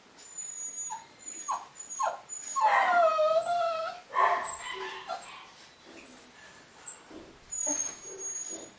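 Cavapoo puppies whimpering and yipping: a few short yelps in the first two seconds, then a longer wavering whine about three seconds in, followed by scattered softer whimpers.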